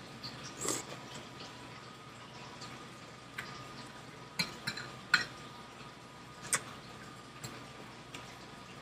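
Metal fork clicking and scraping against a plate in a string of short sharp clinks, the loudest about five seconds in, with a mouth sound of a bite being taken near the start.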